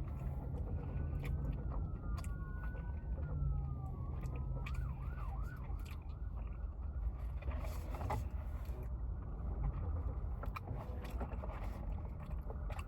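An emergency-vehicle siren sounding in the background: a slow wail rising and falling, switching to a fast yelp about five seconds in and stopping soon after. Under it there is a steady low rumble, and scattered short clicks follow in the second half.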